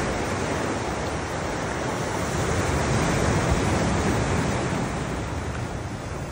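Ocean surf washing on the shore, with wind buffeting the microphone. It is a steady rushing noise that swells slightly around the middle.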